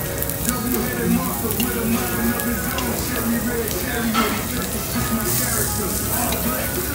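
Shrimp and a steak sizzling steadily on a hot stainless tabletop barbecue grill, with a few light clicks as metal tongs move the shrimp.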